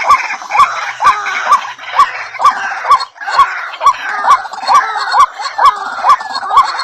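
Birds calling: one sharp, hooked note repeats about twice a second over the busy chatter of many birds.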